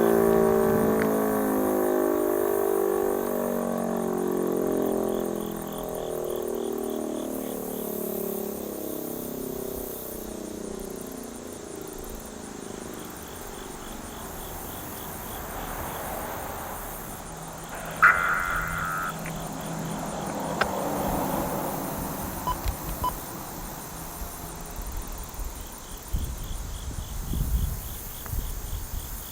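Sentry 3V8 rotating siren winding down after its test signal: its dual tones fall slowly in pitch and pulse as the head turns, fading out over about the first ten seconds. After that, insects chirp in faint pulsing trains, with a short high tone about 18 seconds in and low wind rumble near the end.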